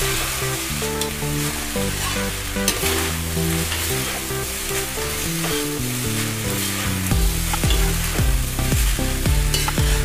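Fried rice sizzling in a wok over a high flame while a metal spatula stirs and tosses it, scraping and knocking against the wok, with more strikes in the second half. Background music plays underneath.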